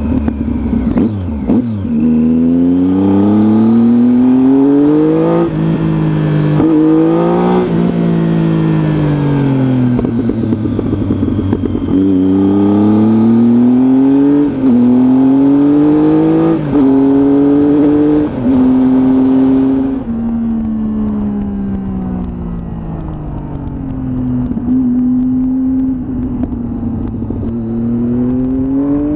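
Triumph Tiger motorcycle engine pulling through the gears: its pitch climbs and then drops sharply at each upshift, several times, then winds down as the bike slows, holds briefly and picks up again near the end.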